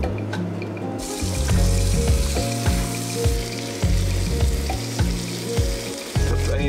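Grouper fillets sizzling in a hot frying pan, the sizzle starting about a second in as the fish goes into the pan. Background music with a steady bass line plays underneath.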